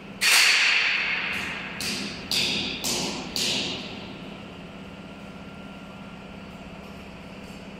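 Exercise-notebook making machine cycling: a loud hissing burst about a quarter second in, then five shorter bursts over the next three seconds, each dying away, over a steady low hum.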